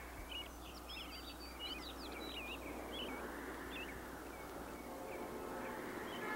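Small birds chirping and twittering in quick bursts, busiest in the first couple of seconds and thinning out after that, over a steady background hiss and low hum of city noise.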